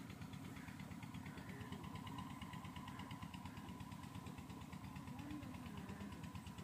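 Faint engine running steadily at idle, a low even throb.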